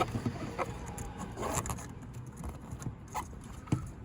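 Scattered small plastic clicks and taps from handling a DS3 HID headlight bulb and pushing its plug connector back on, with a sharp click at the start and a few lighter ones after.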